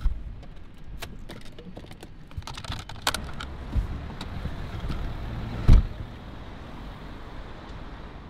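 A car door being opened from inside, with clicks and rattles of the handle and latch and rustling as someone climbs out, then slammed shut with a single loud thump a little before six seconds in.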